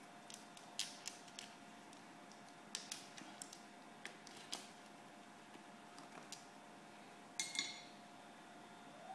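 Small remedy bottles and jars clicking and clinking lightly as they are handled and set down on a desk, in scattered taps, with a brief ringing clink about 7.5 s in. A faint steady tone sits underneath.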